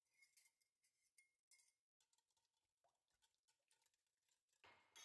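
Near silence, with very faint clinks of a wire whisk against a glass mixing bowl as cream is stirred into an egg mixture.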